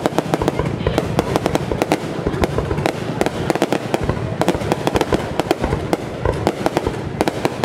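Aerial fireworks bursting close overhead: a dense, unbroken run of sharp cracks and pops, many a second.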